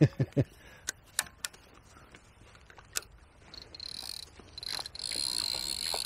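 A few sharp clicks, then a steady high whirr from a fixed-spool fishing reel being wound in, pausing briefly and starting again, as a small hooked perch is brought to the bank.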